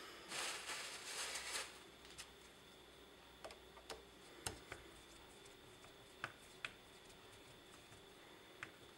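Quiet handling noise of a Briggs & Stratton 5 HP carburetor being worked on by hand: a brief scraping rustle about half a second in, lasting about a second, then a few scattered small clicks and light metal taps as a screwdriver is set into the brass screw on top of the carburetor.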